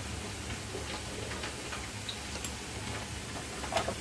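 Potato wedges shallow-frying in hot mustard oil: a steady sizzle with scattered small pops and crackles, the loudest just before the end.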